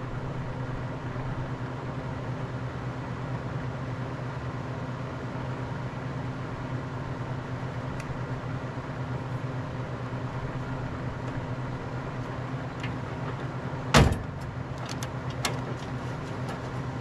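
Arc welding on a steel trailer's jacking beam: a steady hissing crackle over a low electrical hum. About 14 seconds in comes a single sharp knock, followed by a few lighter clicks.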